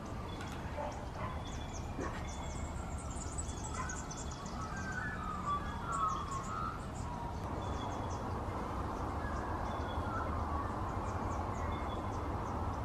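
Wild birds calling and chirping, many short calls scattered over a steady low background rumble of outdoor ambience.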